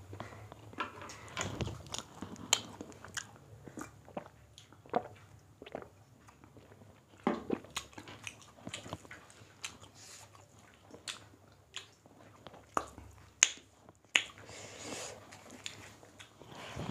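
Two people eating rice and chicken curry with their hands: chewing and mouth clicks come irregularly, with fingers working the rice on the plates. A few sharper clicks stand out late on.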